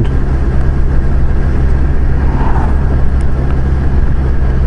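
Kawasaki Versys 1000's inline-four engine running steadily at a constant cruising speed, with continuous road and wind noise and no change in revs.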